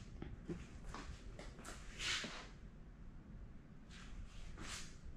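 Faint handling noise: a few soft rustles and light clicks, with a short louder rustle about two seconds in and another near the end.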